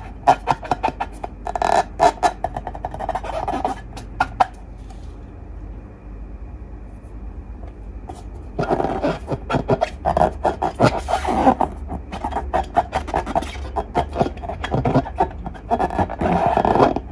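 Slime being worked by hand, a dense run of sticky clicks, pops and squelches, with a quieter pause of about four seconds in the middle.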